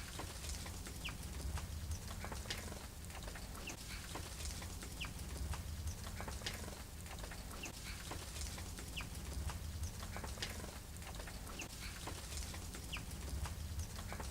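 Small garden birds at a feeder calling with short high chirps, about one a second, along with scattered small clicks over a low steady rumble.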